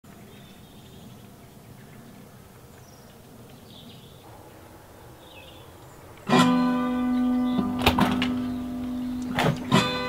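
Faint background hush for the first six seconds, then acoustic guitar music starts suddenly: a plucked chord that rings on, followed by a few more strums.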